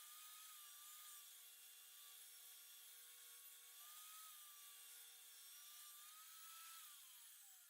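Table saw motor running faintly with a steady, slightly wavering whine, then winding down with a falling pitch near the end as the blade coasts to a stop after a cut.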